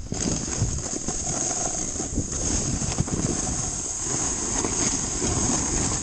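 A snowboard sliding and scraping over rough, chopped-up snow, a continuous grainy rasp, with wind rushing on the camera's microphone.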